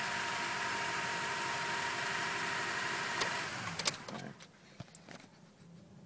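A 2004 Acura TSX's 2.4-litre four-cylinder engine idling rough, heard from inside the cabin: it is misfiring, with one or more cylinders not burning their fuel. The steady running sound cuts off about four seconds in, with a few clicks, leaving it almost quiet.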